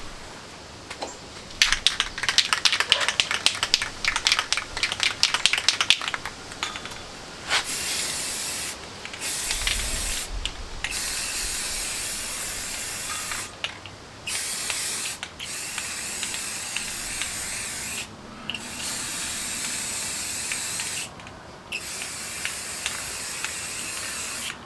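Aerosol spray paint can shaken hard, its mixing ball rattling rapidly for about five seconds. It then sprays a base coat in several long, steady hisses, with short pauses between them.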